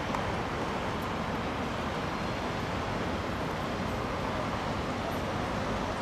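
Steady outdoor background noise: an even rush with no distinct calls, knocks or other events.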